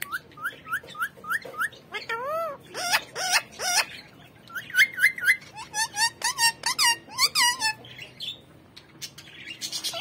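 Indian ringneck parakeet calling: runs of short, quick chirps whose pitch bends up and over, several a second, broken by brief gaps and stopping about eight seconds in.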